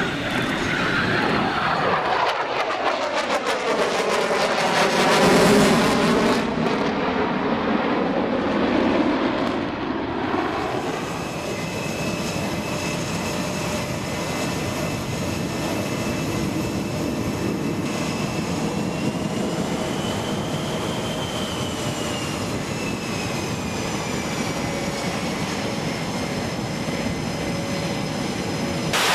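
Jet aircraft flying past, its noise sweeping down and back up in pitch as it passes, loudest about five seconds in. Then a steady jet engine whine with a high tone that rises and falls slightly.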